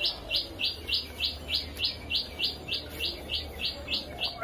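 A small bird chirping rapidly and evenly, about three short, high chirps a second.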